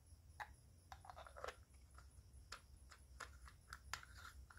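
Faint scattered clicks and light scrapes of a small metal flashlight's parts being handled, with near silence between them.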